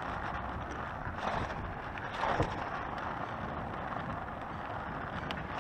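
Wind rushing over an action camera's microphone and the tyres of an Oxelo Town 9 EF V2 electric kick scooter rumbling on asphalt as it rolls along. There are two brief louder swells, about a second and two seconds in.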